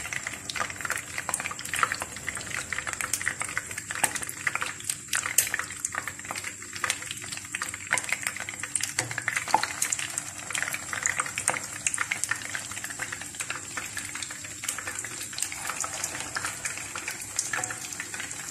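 Egg-dipped chicken and potato cutlets sizzling in hot oil in a frying pan, a continuous crackle with many sharp pops as more cutlets are laid in.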